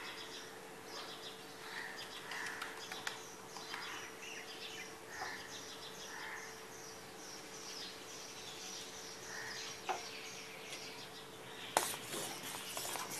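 Small birds chirping over and over in the background, over a steady low hum. About twelve seconds in, a sharp clank of a spoon against the steel pot, then stirring of the curdled milk begins.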